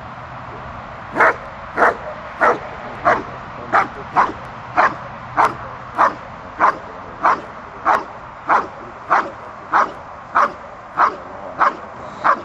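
Giant schnauzer barking at a helper in protection work, with a steady run of sharp barks about every half second to two-thirds of a second. The dog has let go of the sleeve and is guarding the still helper. The barking starts about a second in.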